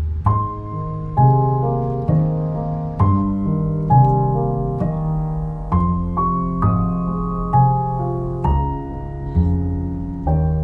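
Background piano music: a gentle melody with notes struck roughly once a second over held lower notes.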